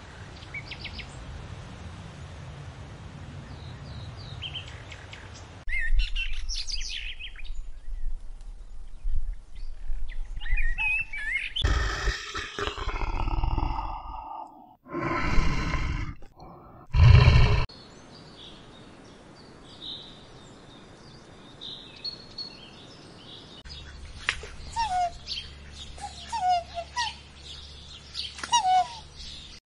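Birds chirping. About midway come several loud growls from brown bears, then more chirps and short bird calls.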